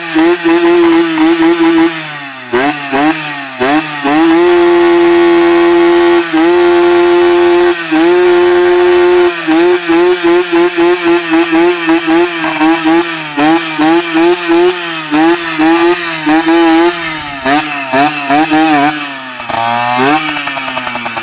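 Casal motorcycle's two-stroke engine being revved hard: it is held at high revs for a few seconds at a time and blipped over and over in quick rising-and-falling bursts, then the revs drop back near the end.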